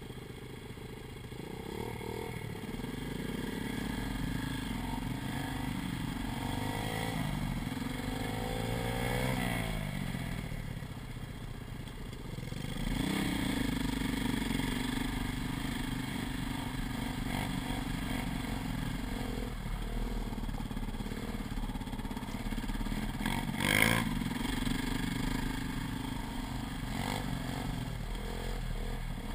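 KTM dirt bike engine running under throttle on a rough dirt track, the revs rising and falling. It eases off briefly about ten seconds in and picks up again a few seconds later, with one sharp knock, like a stone or bump striking the bike, around twenty-four seconds in.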